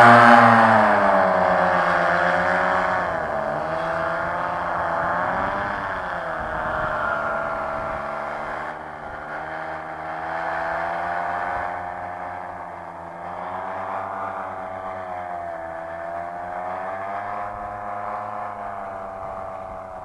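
Nirvana F-Light 160 paramotor's engine and propeller running at high throttle through liftoff, loudest at the start and fading steadily as it flies away, its pitch wavering up and down.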